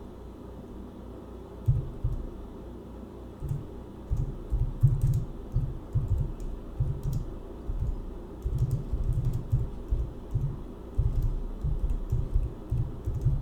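Typing on a computer keyboard in uneven runs of keystrokes with short pauses between them, starting about two seconds in.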